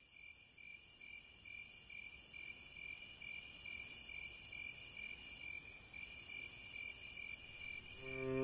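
Insects chirping, a cricket-like chirp repeating evenly two or three times a second over a high, swelling hiss of more insects; low bowed-string music comes in near the end.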